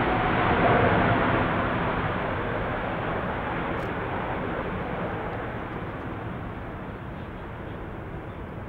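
Airbus A380 jet engines on the landing rollout, a loud rushing roar fading steadily as the airliner slows on the runway.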